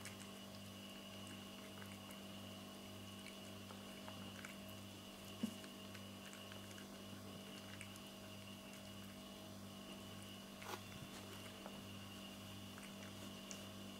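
Cat eating wet cat food chunks from a plate: faint, wet chewing and licking clicks. One louder knock about five seconds in, over a steady low hum.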